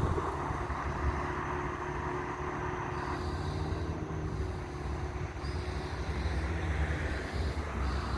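Diesel locomotive of a freight train running through, a steady low rumble with an engine hum.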